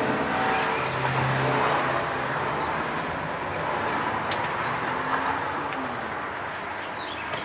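Road traffic going by: a steady rushing noise that swells and fades over several seconds.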